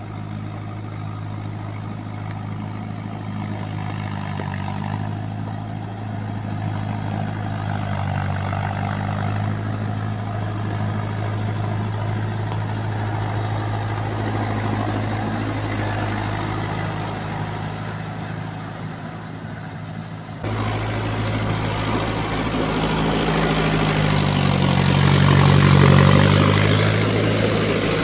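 Mahindra Yuvo 585 4WD tractor's diesel engine running steadily under load, pulling a Shaktimaan rotavator through wet paddy mud to puddle it. About two-thirds of the way through the sound jumps abruptly louder and closer, with the rotavator churning mud beside the engine, whose note swells and then eases near the end.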